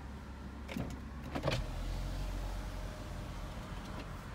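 A car's power window motor running steadily for about two and a half seconds, lowering the driver's window, over the low hum of the car running. It is preceded by a couple of short clicks about a second in.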